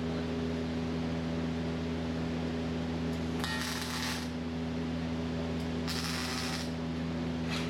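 Steady electrical hum, with two short bursts of MIG welding arc hiss about a second long, a few seconds apart, and a brief third one near the end: quick test welds on freshly set arc length and wire speed.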